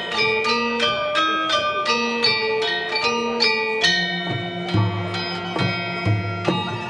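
Instrumental background music with a quick, repeating run of short notes; deeper bass notes come in about four seconds in.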